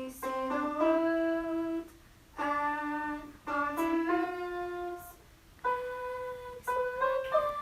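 Instrumental intro music: short melodic phrases of held notes, with brief pauses between the phrases.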